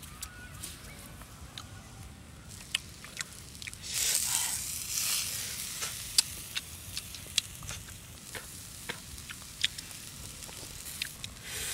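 Fish and egg sizzling on a hot flat cooking stone, with a louder burst of hissing about four seconds in. Sharp clicks and crackles are scattered throughout.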